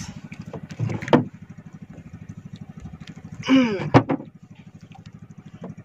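Small engine on a fishing boat running steadily with a fast, even putter. Two short, louder sounds break in, about a second in and just before four seconds.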